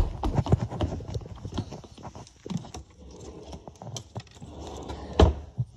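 Irregular close clicks and knocks, thick in the first second and sparser after, with one louder thump near the end.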